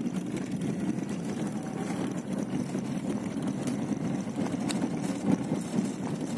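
Fiat Uno driving slowly on a gravel road, heard from inside the cabin: a steady rumble of engine and tyres on gravel, with a few faint ticks.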